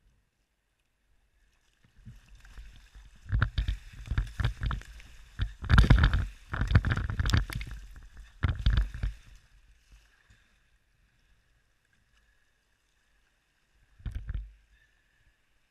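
River water splashing and churning hard against a whitewater kayak and its camera as the boat plays in the current and the camera is dunked under, loudest around six seconds in. One more short splash near the end.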